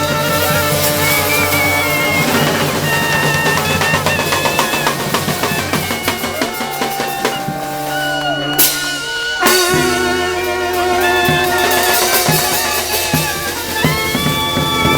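Street brass band playing, with horns holding notes over a drum kit of bass drum and snare. A short break about nine seconds in, then the full band comes back in.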